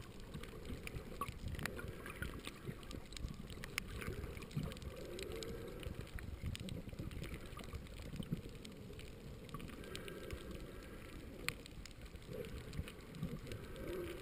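Underwater ambience picked up by a submerged camera: a muffled, uneven low rumble of moving water with scattered sharp clicks and crackles.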